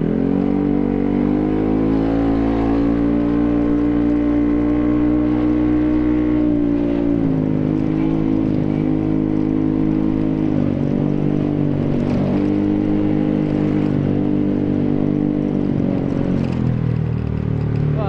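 Yamaha X-Ride scooter engine running through an aftermarket Tekamoto Trioval silencer under way. The revs climb quickly right at the start, then hold fairly steady under throttle. They dip briefly a few times as the throttle is eased and drop near the end.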